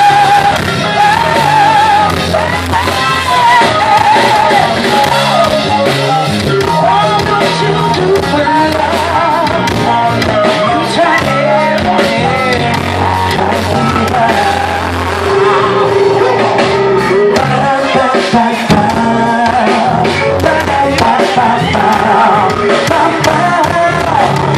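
Live blues-rock band playing loud, with electric guitar, keyboards and drums, and a man singing over it. One long note is held for about two seconds roughly two-thirds of the way through.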